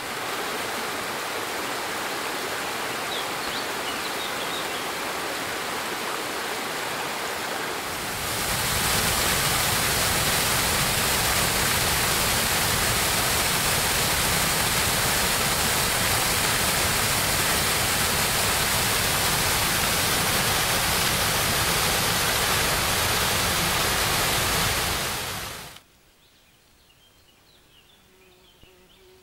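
Mountain stream rushing over stones, then from about eight seconds in a small waterfall pouring into a pool, louder and fuller. The water cuts off suddenly near the end, leaving a quiet background with a few faint bird chirps.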